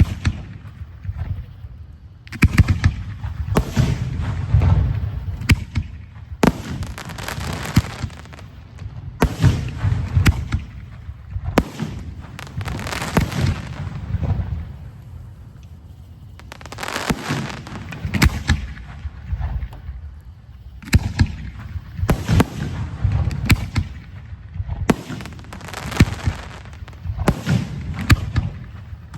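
Professional fireworks show: aerial shells fired from mortars and bursting, with many sharp bangs and crackles coming in rapid volleys separated by short lulls.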